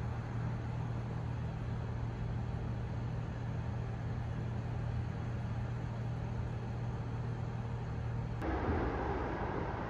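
Parked police patrol car idling, a steady low engine hum. About eight seconds in it gives way suddenly to a louder, hissier outdoor noise.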